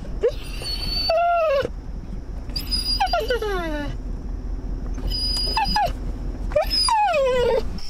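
A dog whining in a vehicle cab: about four drawn-out whines, each falling in pitch, the longest near the middle and the end.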